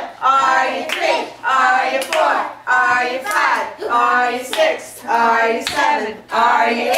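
Hand clapping with children's excited voices and shouts.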